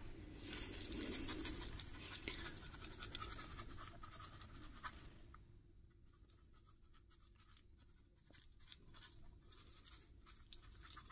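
Faint rustling patter of dry fine-grit postcrete poured from a small cup onto wet cement, dying away to near silence after about five seconds.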